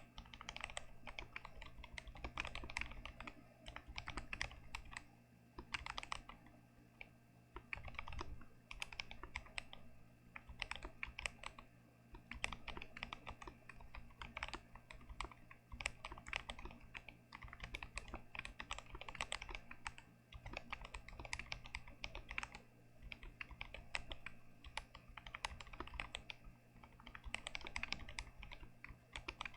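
Continuous typing on a GMMK Pro aluminium mechanical keyboard with Gazzew Boba U4T tactile switches, stock and unmodded: rapid key presses in runs of a second or two with short pauses between. A faint steady low hum sits underneath.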